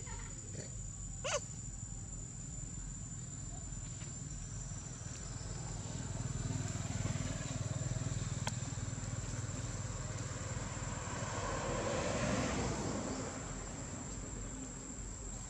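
Low rumble of a distant motor vehicle that swells around the middle and again near the end, over a steady high-pitched insect whine, with one short squeak about a second in.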